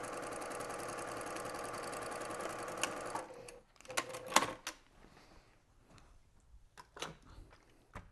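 Sewing machine stitching a seam at a steady speed, then stopping about three and a half seconds in. A few sharp clicks and knocks follow.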